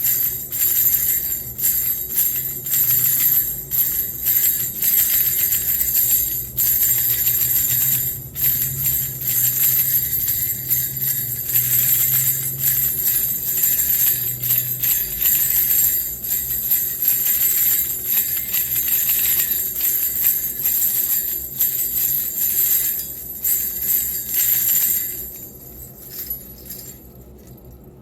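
Wooden baby rattle shaken continuously in quick strokes, jingling with a bright, high ring; the shaking stops about 25 seconds in.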